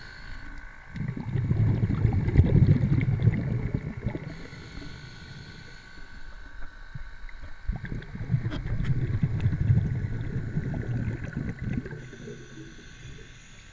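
Muffled underwater rumble of water moving around a submerged camera as it is pushed along a brook bottom, swelling twice, about a second in and again around eight seconds in, with scattered light knocks.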